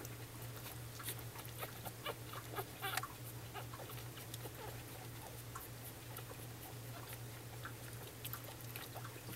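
Newborn Cavalier King Charles Spaniel puppies suckling at their mother: faint, irregular wet clicks and smacks with a couple of tiny squeaks.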